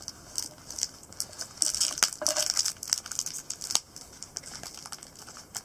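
Foil trading-card packets crinkling and rustling as they are handled and opened, in quick, irregular high-pitched crackles, with a couple of sharper ticks about two seconds in and near four seconds.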